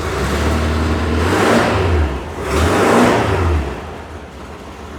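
1974 VW Bus's air-cooled flat-four engine revved twice, rising and falling back each time, then settling to idle.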